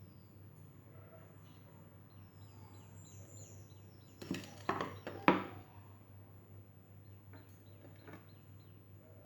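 A short cluster of knocks and clinks of dishes and cutlery a little past four seconds in, the sharpest about five seconds in. Birds chirp in the background over a steady low hum.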